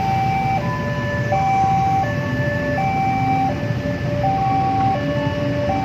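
Electronic two-tone warning alarm alternating high-low, about three-quarters of a second per tone, over the low rumble of an electric commuter train moving past. A faint whine rises slowly in pitch in the second half as the train runs.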